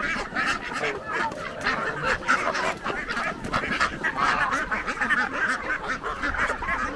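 A large mixed flock of domestic geese, ducks and chickens calling all at once, geese honking over a constant overlapping chatter of short calls: the birds crowding the keeper at feeding time.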